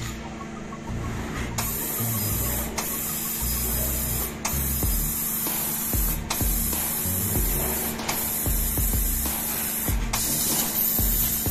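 SENFENG fiber laser cutting head blowing assist gas onto 10 mm steel plate during piercing and cutting. A loud steady hiss starts about a second and a half in and is broken every couple of seconds by a sharp click.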